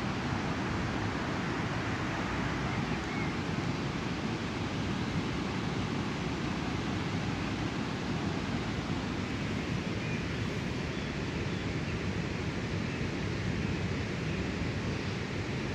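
Steady, even rushing noise of the open air, with no distinct events.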